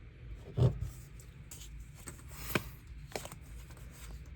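Pokémon trading cards being handled and flipped through, with a dull thump about half a second in and a couple of sharp clicks later.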